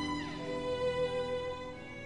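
Slow background music on a violin, long held notes with a downward slide about half a second in.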